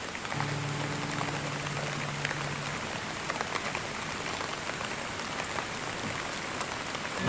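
Steady rain falling, an even hiss with scattered drop taps. A low steady hum sounds under it for the first couple of seconds.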